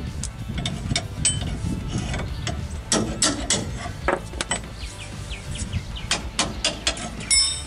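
Hand ratchet clicking in short, irregular runs as the bolt on the truck's lower shock mount is worked loose, with a few sharp metal clinks of tools.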